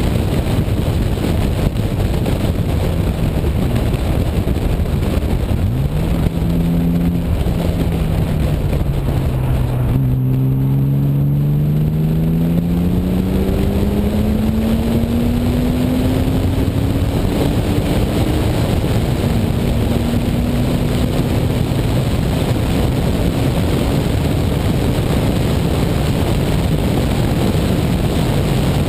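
1998 BMW E36 M3's 3.2-litre straight-six at full throttle under heavy wind buffeting on the microphone. About ten seconds in the engine note drops, then climbs steadily for some eight seconds as the car accelerates. For the rest it is mostly buried under the wind.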